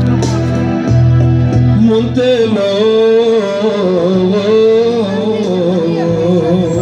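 Piano accordion playing a tune over held bass notes. From about two seconds in, a wavering, ornamented melody is sung over it.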